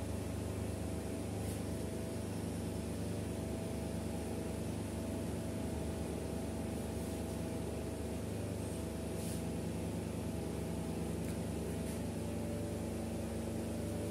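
Steady low machine hum with a faint higher tone, unchanging throughout, with a few faint ticks.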